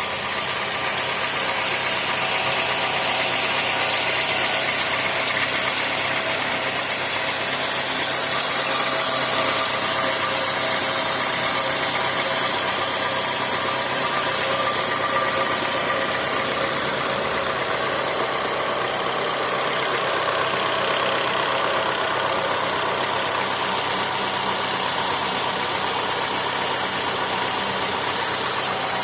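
Honda Civic sedan's engine idling steadily with a knock, the noise the owner is recording. It runs a little louder from about 8 to 15 seconds in.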